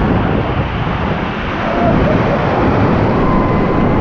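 Whitewater rapids rushing and splashing around a raft, a loud, steady roar heavy in the low end, with water and wind buffeting the microphone.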